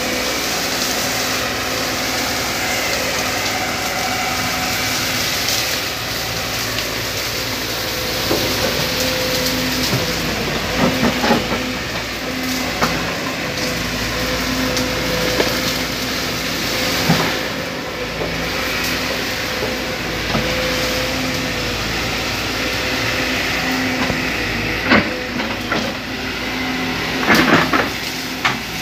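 Sumitomo hydraulic excavator's diesel engine running steadily while its bucket pushes and piles brush, with several sharp snaps and cracks of breaking branches, a cluster of them near the end.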